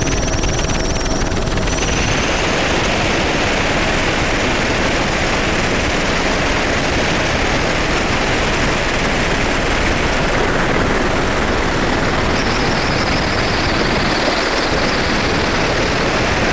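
Helicopter running steadily: a loud, even rush of rotor and engine noise with a thin, steady high whine above it.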